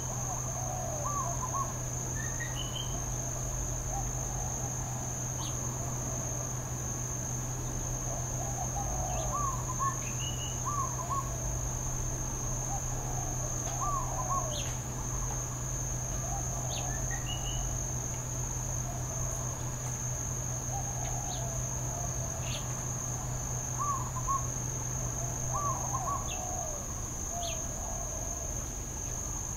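A steady high-pitched insect chorus, with short calls and rising two-note chirps scattered every second or two. A low steady hum underneath stops near the end.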